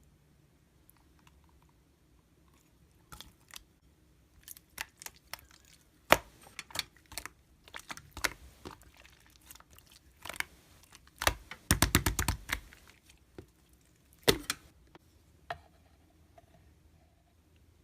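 Computer keyboard being typed on: scattered keystrokes and clicks, with a quick run of keystrokes about two-thirds of the way through.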